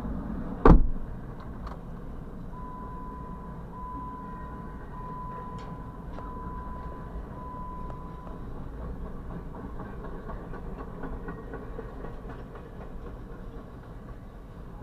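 Intermodal freight train of double-stacked container cars rolling past on the rails with a steady rumble of wheels. A single loud bang comes just under a second in, and from about three seconds in a run of five steady beeps at one pitch follows, ending around eight seconds.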